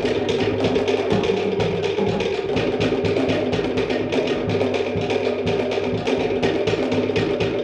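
Cook Islands drum ensemble playing a fast, even beat: wooden slit drums struck rapidly, with a large bass drum and skin drums thudding underneath.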